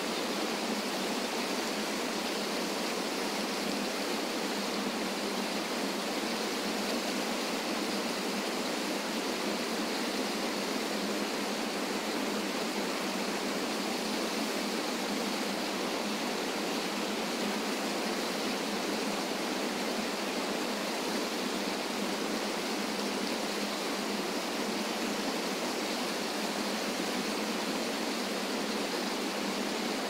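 Small waterfall pouring over rock ledges into a river pool: a steady, even rush of falling and churning water with no deep rumble.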